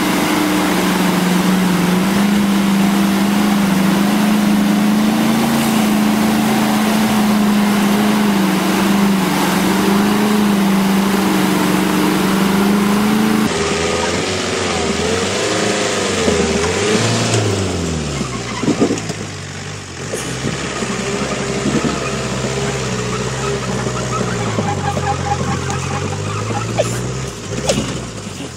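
Heavy six-wheel-drive army truck engine pulling steadily through a fast river, over the rush of water. After a sudden cut, a loaded logging truck's engine revs up and down as it works through mud, with a few sharp knocks late on.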